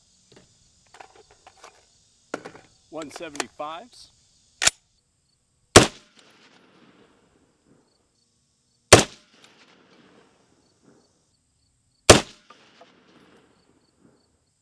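Three loud gunshots about three seconds apart from a CMMG MK3 short-barreled .308 Winchester AR-10 pistol fired without a suppressor, each a sharp crack with a short ring-off. A fainter sharp crack comes about a second before the first.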